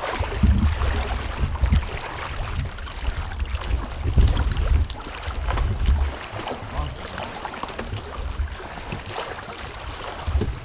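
Wading through flooded timber in waders: water sloshing and swishing around the legs with each step, with wind buffeting the microphone in uneven low rumbles.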